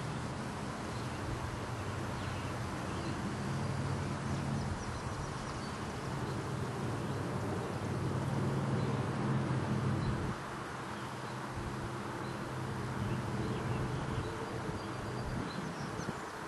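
Outdoor ambience: a steady low hum that weakens about ten seconds in, with a few faint, high bird chirps over a constant hiss.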